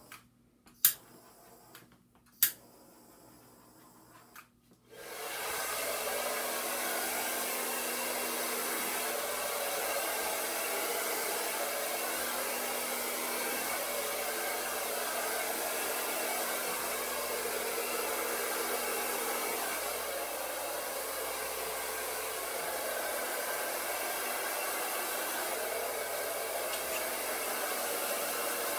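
Two sharp clicks in the first few seconds. From about five seconds in, a hair dryer blows steadily, pushing wet acrylic pour paint across the board.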